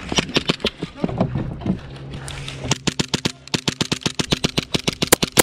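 Airsoft Glock 17 pistol firing: a few scattered sharp shots in the first two seconds, then a fast string of shots, about five or six a second, through the second half, over a low steady hum.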